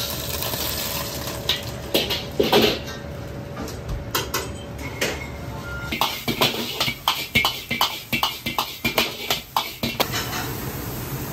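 Scattered knocks and clinks of a metal ladle and ceramic bowls, then from about six seconds in a steel ladle clattering against a wok about three times a second as greens are stir-fried over a running gas burner, stopping at about ten seconds.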